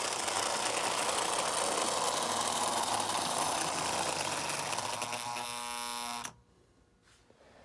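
American Flyer 1937 Hudson tinplate locomotive running fast at full throttle, its electric motor and wheels making a loud, steady whirring rattle. A steady whine comes in near the end, then the sound cuts off abruptly about six seconds in as the power is cut.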